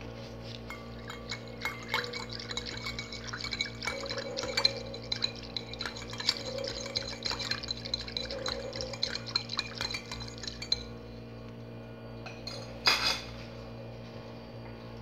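A wire whisk beats a thin liquid in a bowl: the wires clink rapidly against the bowl's sides, with some sloshing, and then stop. A single sharp knock comes near the end.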